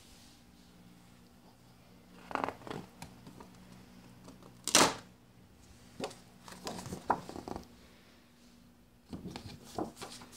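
Scattered handling noises, short rustles and knocks, with the loudest sharp knock near the middle, over a low steady hum.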